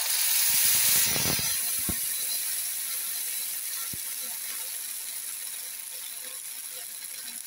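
Water poured from a steel glass into a pan of hot oil with mustard seeds, curry leaves and green chillies, hitting the hot oil with a loud sizzle. The sizzle is strongest in the first second, then settles into a steady crackling hiss that slowly fades. This is the water being added to a tadka (tempering).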